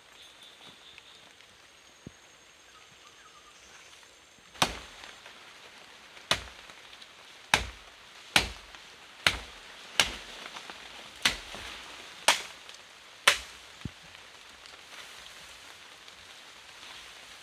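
A blade chopping into bamboo: about nine sharp strokes roughly a second apart, starting about four and a half seconds in.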